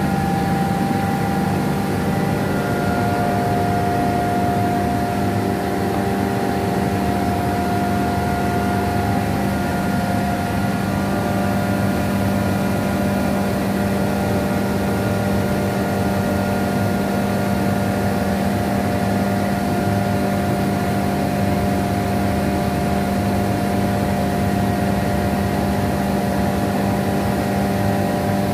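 Industrial air compressor running steadily: a constant mechanical drone with a steady whine over it.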